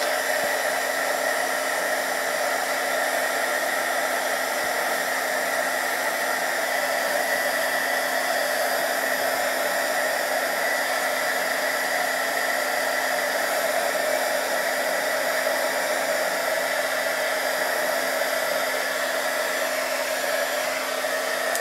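Handheld heat gun blowing steadily: an even rush of air with a constant hum, melting the crayon wax on a shell mosaic pendant so it can be wiped off the stones.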